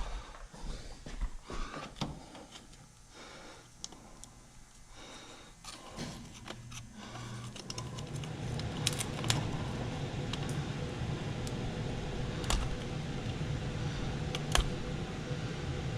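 Tools and parts being handled: scattered sharp clicks and small metallic rattles. About six seconds in, a steady low hum starts and runs on under further clicks.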